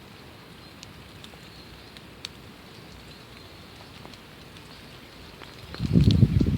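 Steady rain falling: an even hiss with scattered drops ticking. A loud low rumble comes in near the end.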